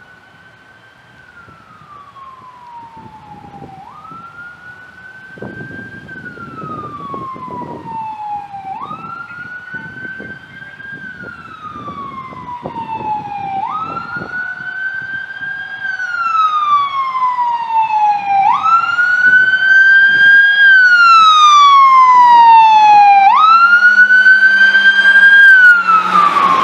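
Siren of a 2014 KME pumper fire engine wailing as it approaches, getting steadily louder. Each cycle rises quickly and falls slowly, about every five seconds. Near the end the truck passes close by and a rush of engine and road noise joins the siren.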